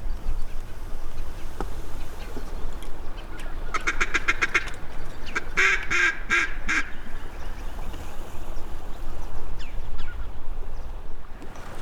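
Duck quacking in two quick runs: a softer string of rapid quacks about four seconds in, then a louder run of about five quacks just after, over a steady low rumble of wind.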